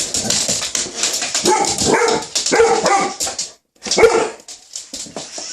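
A dog barking in several short barks at a remote-control car it is wary of, over a steady high hiss.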